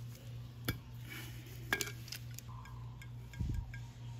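Sharp metallic clinks and ticks of locking vise pliers against a brass valve stem and a chrome scooter wheel rim, the loudest about a second and a half in, with a dull thump near the end. A steady low hum runs underneath.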